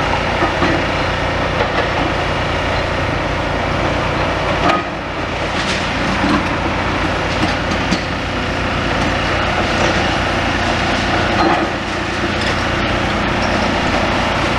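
Demolition machinery working on a building: a diesel engine running steadily under crunching and cracking of breaking material, with a few sharper cracks scattered through.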